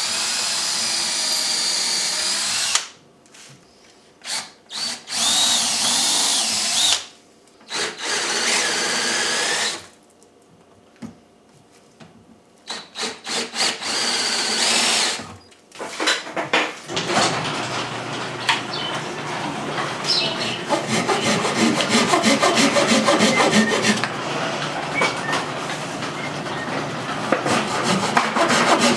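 DeWalt cordless drill boring into a pine 2x4, running in four separate bursts with pauses between them. From about 17 s on, a hand saw cuts a dowel plug flush with quick back-and-forth strokes.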